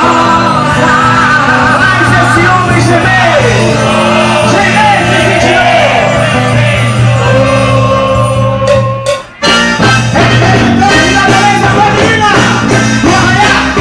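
Loud live band music with a singer, with a brief dropout about nine seconds in.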